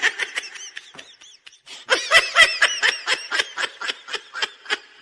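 A run of quick, high-pitched laughter, about four short bursts a second.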